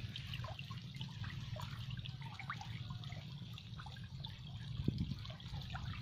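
Faint water trickling and plinking, with many small drop-like plinks over a steady low hum.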